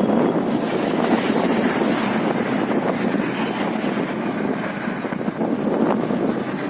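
Steady road and wind noise of a vehicle driving along a highway.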